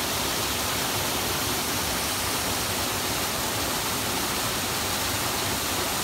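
Small waterfall pouring into a rocky pool and stream: a steady, unbroken rush of falling and running water.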